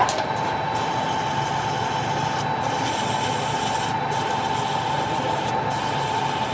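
Metal lathe turning a workpiece, the tool cutting with a steady scraping noise and a steady high ringing tone.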